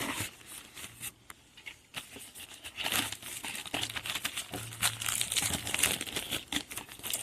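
Packaging crinkling and tearing as wrapped wheat straw plates are pulled open by hand, faint at first, then a dense run of crackles from about three seconds in.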